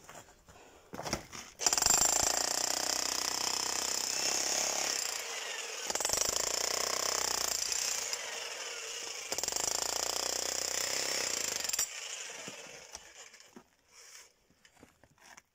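Yato YT-82001 1600 W electric demolition hammer chiselling into thick concrete with steel wire mesh: a loud, rapid hammering that starts about two seconds in, eases off briefly twice, and stops about twelve seconds in.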